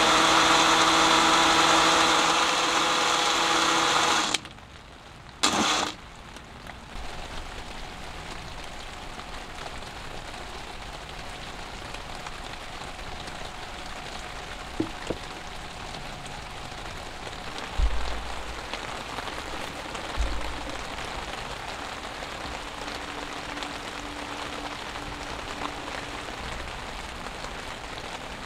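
Small electric blender running off a portable power bank that is at the limit of its output, a 200 W blender on a battery rated 150 W and 200 W at most. It cuts off after about four seconds, and a short loud burst follows a second later. Steady rain then runs through the rest, with a couple of low thumps.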